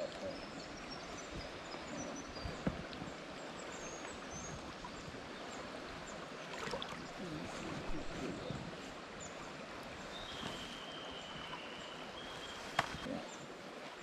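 Small creek running over rocks in a shallow riffle, a steady rush of water. Faint high chirps come in the first few seconds, and a thin held whistle about ten seconds in.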